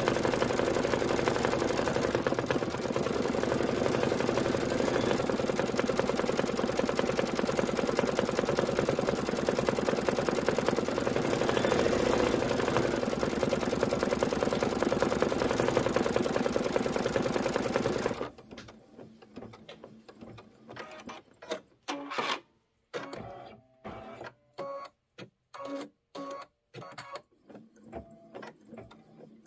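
Embroidery machine stitching steadily at speed, a dense rapid needle clatter. About two-thirds of the way through it stops abruptly, leaving only short, irregular clicks and brief whirs.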